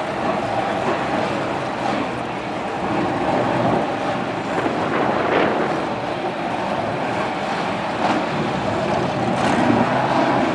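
BriscA F1 stock cars' V8 engines idling together with a farm tractor's diesel engine. They make a steady, dense engine noise with a few brief louder moments.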